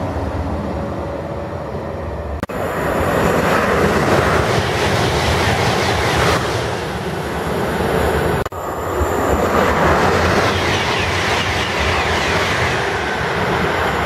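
TGV high-speed train running through the station at speed: a loud, steady rushing of wheels on rail and displaced air. It is broken by two abrupt cuts, about two and a half and eight and a half seconds in.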